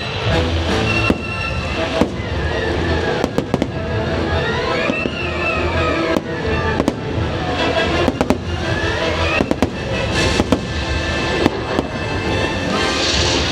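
Fireworks bursting, with sharp bangs and crackles scattered irregularly throughout, over loud show music playing continuously.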